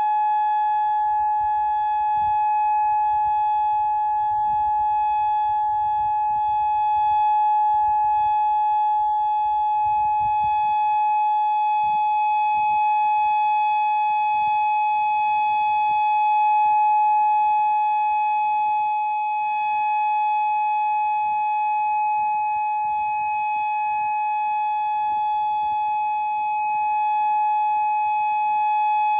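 Modulator 6024 electronic warning siren sounding a steady tone that does not rise or fall in pitch, during a scheduled siren test.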